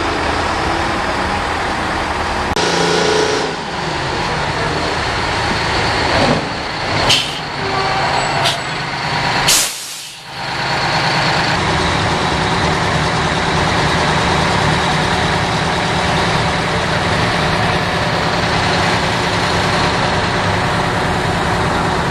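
Heavy diesel truck engines running, with several short sharp air-brake hisses in the first ten seconds; after that one diesel engine runs on with a steady drone.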